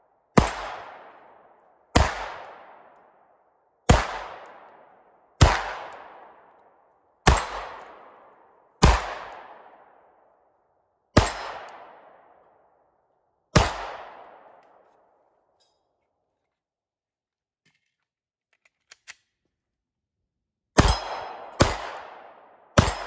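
Pistol shots fired one at a time, eight of them about two seconds apart, each trailing off in a long decay. After a pause of about six seconds with two faint clicks, three quicker shots follow near the end.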